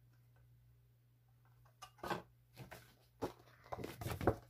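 Paper product card and packaging being handled: quiet at first, then a few short rustles and taps from about two seconds in, the loudest near the end.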